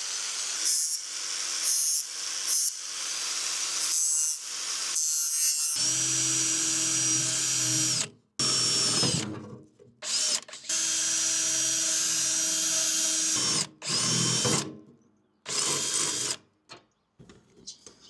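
Power drill drilling holes to mount a registration plate. It runs in several bursts of a few seconds each, with short stops in between.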